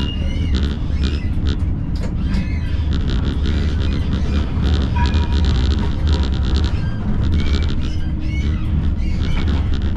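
Siemens Combino tram running on street track: a steady low rumble, with several stretches of high, rasping squeal from the wheels on the curving rails.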